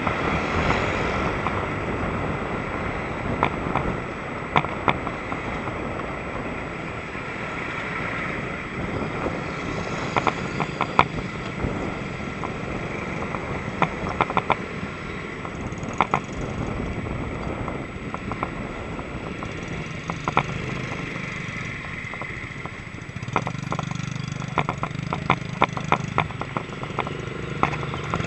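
Riding a mountain bike along a road: a steady rush of wind and tyre noise, broken by sharp clicks and rattles from the bike jolting over bumps. Near the end a low steady hum of idling engines from motorcycles and cars queued alongside comes in.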